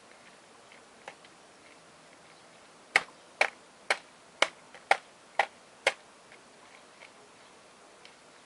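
Seven sharp taps in an even rhythm, about two a second, starting about three seconds in.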